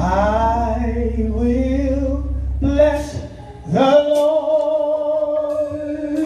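Live church gospel music: a singer holds long notes and slides between them over a sustained low accompaniment, with cymbal hits from a drum kit. The low accompaniment drops out about three seconds in, and the voice swoops up into a new held note.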